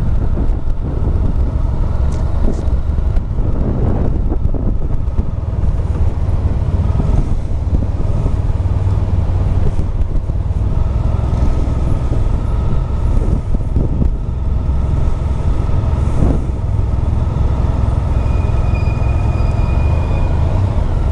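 Motorcycle engine running at low speed as the bike rolls slowly along, heard from the rider's own bike-mounted camera.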